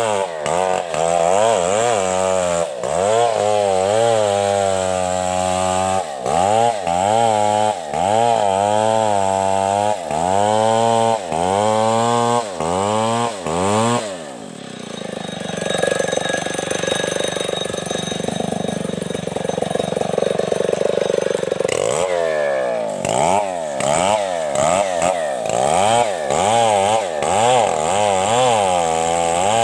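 A large STIHL chainsaw ripping a coconut log lengthwise. Its engine pitch rises and falls about once a second as the bar is worked through the wood. Partway through, the swing stops for several seconds and the sound goes steadier, then the saw revs up and the swinging resumes.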